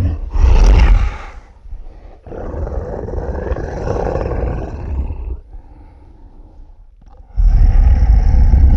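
Monster-roar sound effects for a fictional dinosaur. A short loud roar comes first, then a longer, rougher roar from about two seconds in, and another loud roar starts near the end.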